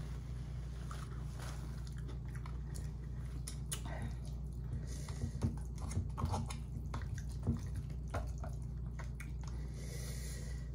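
Close-miked chewing mixed with scattered clicks and light scrapes of plastic chopsticks stirring noodles in a stainless-steel pot, busiest in the middle. A steady low hum runs underneath.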